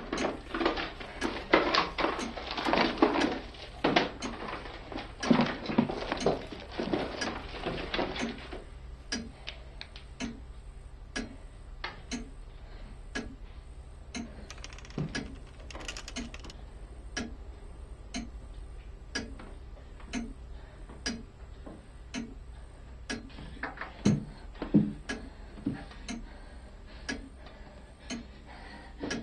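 Rummaging through a wooden drawer: objects rustling and clattering for about the first eight seconds. Then a clock ticking steadily, about once a second, with a few louder knocks and rustles near the end.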